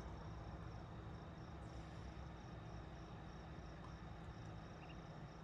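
Crickets chirping in a steady, rapid pulse, faint, over a low steady hum. No thunder is heard from the distant lightning storm.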